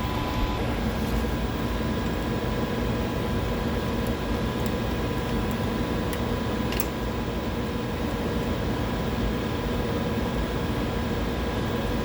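Steady machine hum of running laboratory equipment, with a few faint clicks about halfway through.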